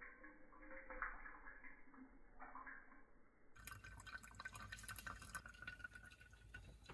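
Near silence: faint background hiss with a few soft ticks.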